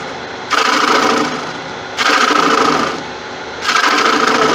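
Bowl gouge cutting into the inside of a wooden bowl spinning on a lathe: three loud scraping passes, each about a second long and roughly 1.7 s apart, with the lathe running quieter between them. These are finishing cuts made by sweeping the gouge up and down to keep its bevel in contact with the wood.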